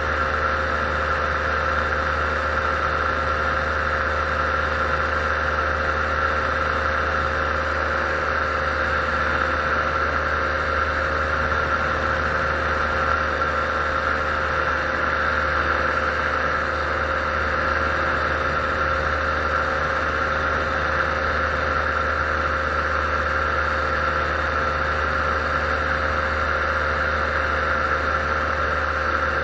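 Paramotor engine and propeller running steadily at a constant cruise throttle in flight, an even drone that neither rises nor falls.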